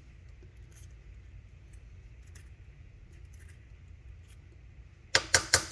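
Faint scattered ticks of small metal parts being handled, then near the end a quick run of four loud, sharp metallic clicks.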